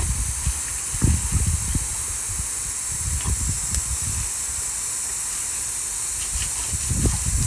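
Steady high hiss with irregular low rumbling, like wind buffeting the microphone.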